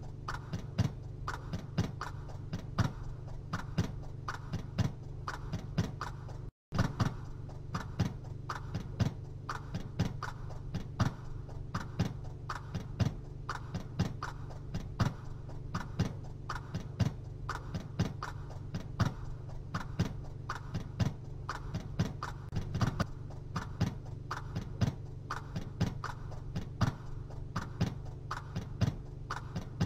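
Steady, regular ticking, about two ticks a second, over a low steady hum, with a brief cut to silence about six and a half seconds in.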